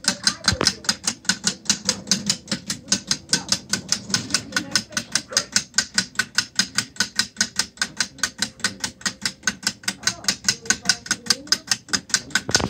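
A 3D-printed PLA watch lever escapement ticking. The escape wheel's plastic teeth click against the pallet fork in a rapid, even beat of about five ticks a second as the balance wheel swings back and forth.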